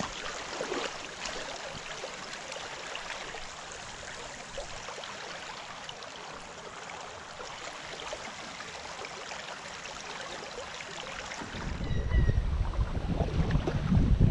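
Shallow river riffle water running and babbling steadily. Near the end, wind starts buffeting the microphone with a heavy low rumble.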